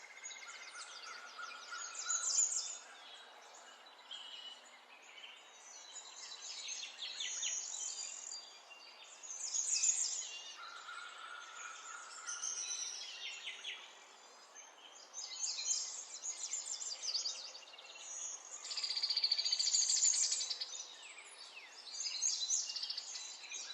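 A parrot chirping and chattering in repeated high, rapid bouts every few seconds, with a couple of short held whistles in between.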